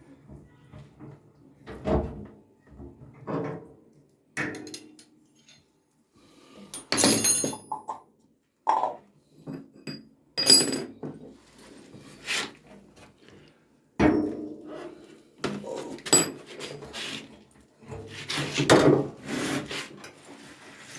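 Irregular knocks, thuds and scrapes of tools and metal and plastic parts being handled, during a washing machine bearing repair.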